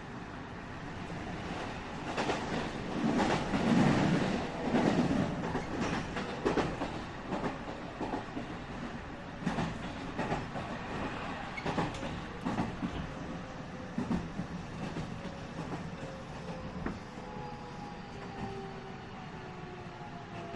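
Running sound inside a JR West 207 series 1000-subseries electric train: wheels clattering over rail joints and points, with a cluster of loud knocks a few seconds in. Near the end the Toshiba GTO-VVVF inverter's whine comes in as two tones falling in pitch while the train slows.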